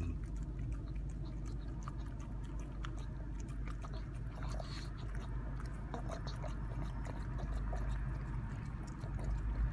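A pug lapping whipped cream from a small paper cup: a continual run of wet licking and smacking clicks over a steady low hum.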